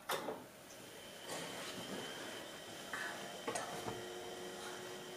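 A sharp click as the power key is pressed, then the Apple Macintosh IIsi powering up: its fan and hard drive spin up into a steady hiss and whine, with a couple of mechanical clicks from the drive.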